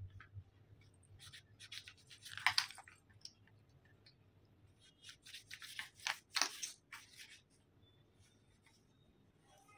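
Wooden shape-puzzle pieces tapping and scraping against the puzzle board as a toddler handles them, in two spells of clicks and rubbing, one about a second in and another around the middle.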